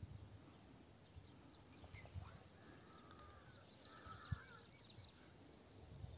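Near silence, with faint distant bird chirps in the middle and a single soft low knock about four seconds in.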